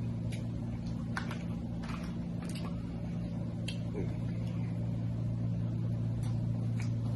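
Eating sounds from a seafood boil: scattered sharp clicks and smacks, several seconds apart, over a steady low hum.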